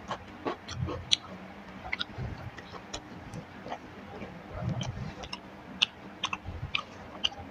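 Close-miked eating: chewing with frequent wet mouth clicks and lip smacks, irregular and a few a second.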